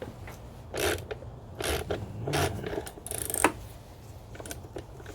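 A 10mm ratchet wrench clicking in several short bursts as it turns an ignition coil's hold-down bolt. The bolt keeps spinning without coming out because its metal threaded insert has broken out of the plastic coil housing, which happens when the coil is over-tightened.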